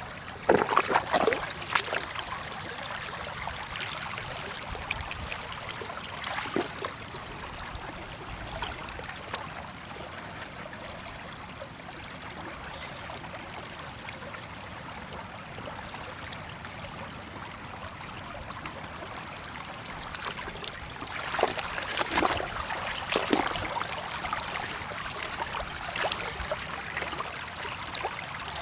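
Shallow floodwater trickling steadily, with bursts of splashing near the start and again about three quarters of the way through.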